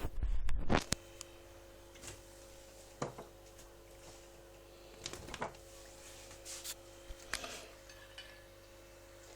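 A loud, short burst of handling noise at the start, then faint scattered clicks and knocks in a small room over a steady low hum.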